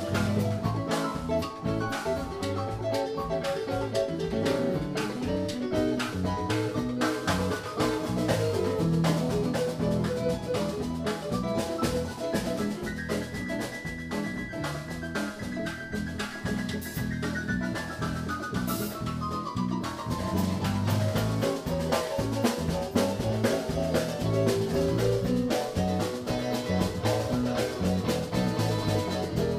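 Live band jamming: drum kit and electronic keyboard playing together, with a held high note that slides down in pitch about halfway through.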